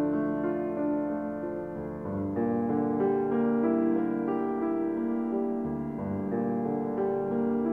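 Background music: a slow keyboard piece with long sustained notes.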